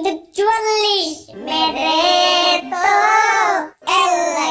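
A child's high voice singing in long, wavering held notes, broken by short pauses about a second in and again near the end.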